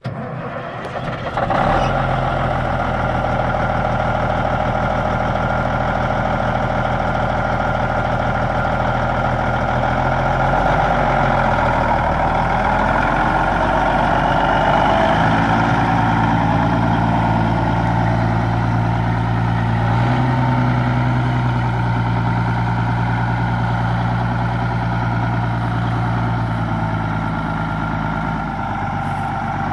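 Diesel engine of a 2001 Peterbilt 379 truck tractor idling steadily, its pitch shifting slightly a few times.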